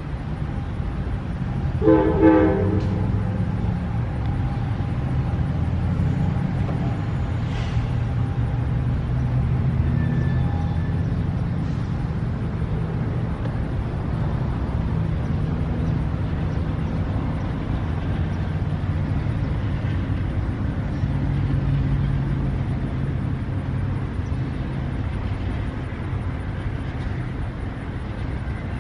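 Amtrak passenger train pulling away, its cars rumbling steadily on the rails. About two seconds in there is a short train-horn toot.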